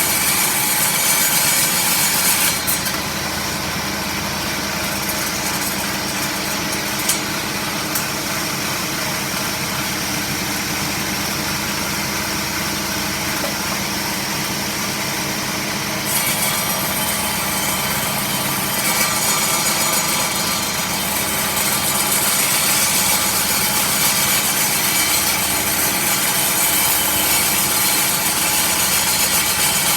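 Power saw running and cutting wood, a steady loud whine and rasp that changes in tone about 3 seconds in and again about 16 seconds in.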